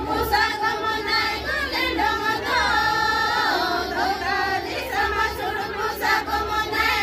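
A group of women singing a Santali Baha song together in unison, voices holding long notes that rise and fall together.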